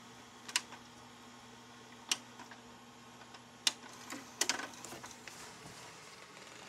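Buttons on the front panel of a DVD/VCR combo player being pressed: single sharp clicks about a second and a half apart, then a quick cluster of clicks a little after four seconds in.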